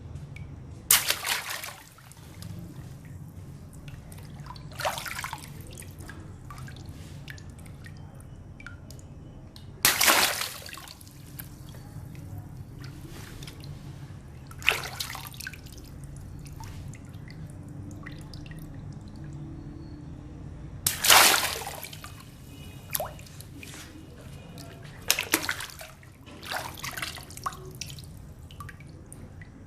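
Water balloons bursting one after another, each a sudden pop followed by water splashing and dripping. There are about eight bursts with pauses of a few seconds between them, the loudest about a second in, about ten seconds in and about twenty-one seconds in.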